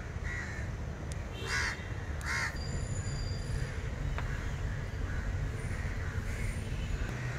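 Crows cawing, three harsh caws in the first two and a half seconds and fainter ones later, over a steady low background rumble.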